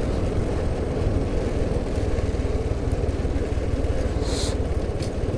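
Motorcycle engine running steadily while riding along, with road noise. A short burst of hiss a little over four seconds in.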